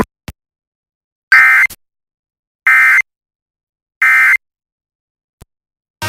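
Emergency Alert System End of Message signal: three short bursts of SAME digital data tones, each about a third of a second, spaced roughly a second and a half apart, with a small click just after the start.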